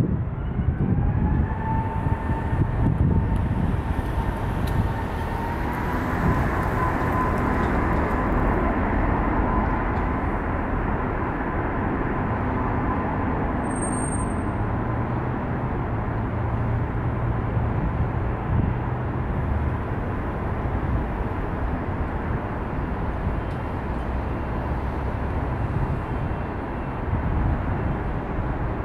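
Airbus A380's four turbofan engines at takeoff power during the takeoff roll. A whine rises over the first few seconds as the engines spool up, then holds steady over a heavy rumble.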